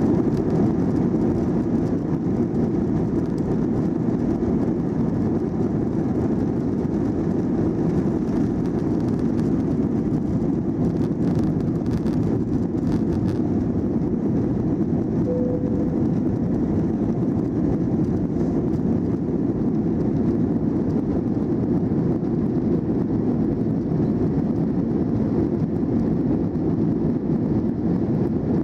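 Jet airliner cabin noise during takeoff and climb-out: the engines at takeoff power heard from a window seat as a steady, low rush.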